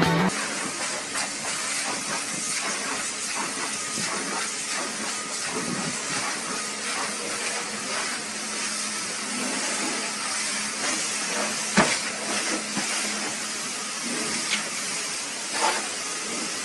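Pressure-washer water spray hissing steadily over a faint steady hum. There is one sharp knock about twelve seconds in and a couple of lighter knocks near the end.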